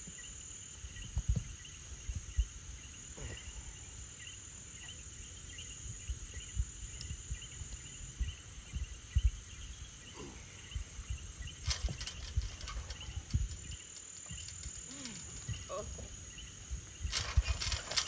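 Night insect chorus: a steady high trill with rows of quick repeated chirps beneath it, over scattered low thumps and scuffling; a burst of rustling and clattering comes near the end.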